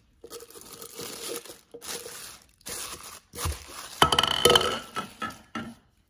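Cellophane wrapping crinkling and tearing in several bursts as a Mainstays personal blender's plastic cup is unwrapped. About four seconds in, a louder stretch of clicking and clattering as the hard plastic cup is handled.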